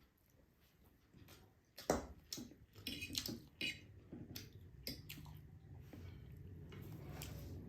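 Close-up eating sounds of Korean ramen noodles, chewing with sharp wet mouth clicks, starting about two seconds in and thinning out after about five seconds.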